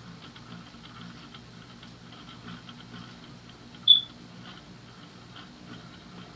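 A c. 1941 Emerson Roundnose ceiling fan's shaded-pole motor running on its low setting: a steady low hum with faint rapid ticking. A single short high squeak sounds about four seconds in.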